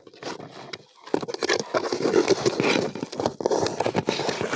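Handling noise from a phone inside a cardboard box: its microphone rubbing and scraping against the cardboard, a dense crackling rustle full of small clicks that starts about a second in.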